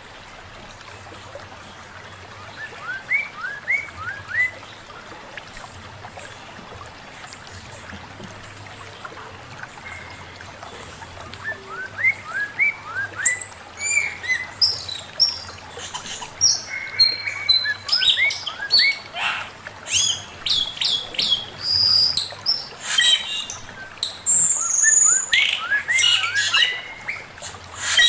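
Male poksay mandarin, a laughingthrush, singing. It starts with soft groups of short rising chirps, and about halfway in breaks into a loud, rapid, varied run of whistled and chattering notes. A faint steady low hum runs underneath.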